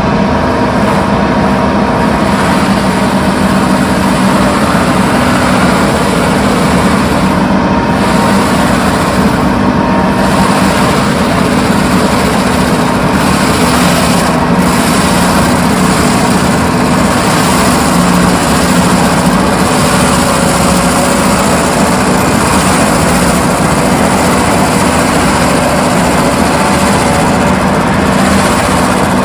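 Doosan DX340LC excavator's diesel engine running loud and steady, with a constant hum and no change in speed.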